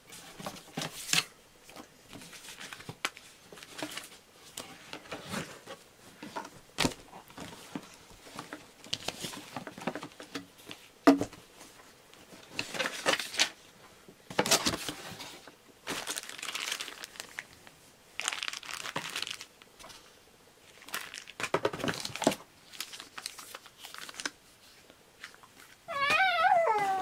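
Cardboard packaging of a Canon EOS M100 camera box being opened and handled: flaps and inserts rustling, sliding and tapping in irregular bursts. A brief high, wavering cry near the end.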